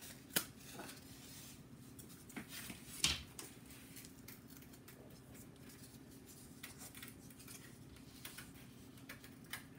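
Thin laser-cut balsa wood parts being handled, separated from their sheet and set down on paper. There are soft rustles and light taps, with two sharper clicks, about half a second in and about three seconds in.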